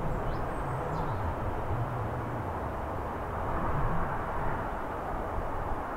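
Boeing 777-300ER's twin GE90-115B turbofans at high power as the jet starts its take-off roll: a steady low rumble of jet engine noise.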